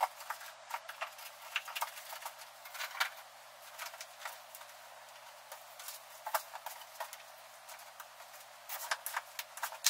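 Irregular light clicks and knocks of small plastic parts and cable being set down into the foam compartments of a hard plastic carrying case, with a busier flurry near the end.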